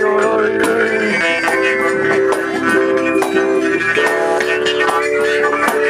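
Music: long held melody notes over plucked strings, with light percussion strikes.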